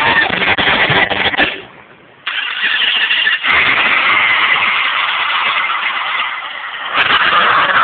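Recorded car-engine sound playing from a red Motorola Ferrari-edition phone's small speaker, cutting out briefly about two seconds in and then carrying on.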